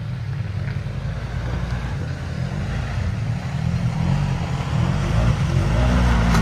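Side-by-side off-road vehicle's engine running and growing steadily louder, its pitch swelling and falling repeatedly in the second half as the throttle is worked over the obstacle.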